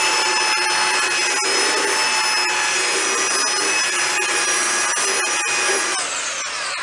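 A small Ridgid 3x18 belt sander runs with a steady high motor whine, its worn 100–120 grit belt sanding sideways across the painted wooden shell of a vintage Slingerland Radio King snare drum to level a hump over glued cracks. About six seconds in the sander is switched off and its whine falls away as it winds down.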